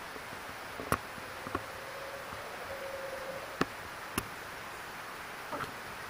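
Faint steady hiss of forest ambience with a few scattered sharp clicks, and a faint, even insect buzz lasting about two seconds midway through.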